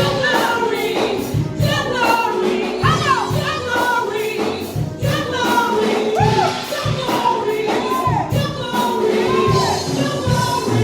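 Gospel worship music with singing, over a steady beat; the melody rises and falls in slow arching glides.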